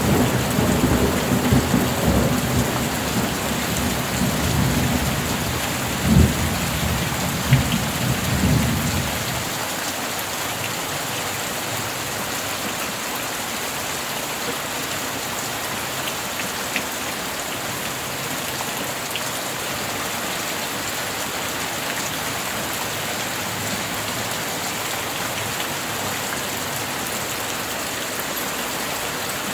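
Steady rain hissing down, with rolling thunder rumbling in the first third, a couple of sharp cracks in it, dying away about nine seconds in.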